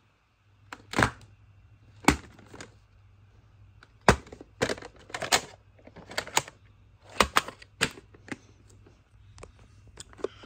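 A plastic VHS clamshell case and its cassette being handled: about a dozen sharp plastic clicks and knocks, irregularly spaced, as the case is opened, the cassette lifted out and the case set back down on a stack of other cased tapes.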